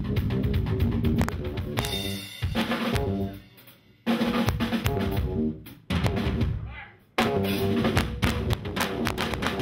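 Drum kit and Fender electric bass playing a groove together in stop-start phrases: the music drops out and comes back in sharply on the beat three times.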